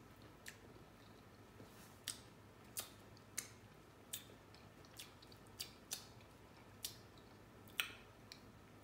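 Seasoned blue crab shells being cracked and crunched apart while eating: about ten short, sharp snaps at uneven intervals, the loudest near the end.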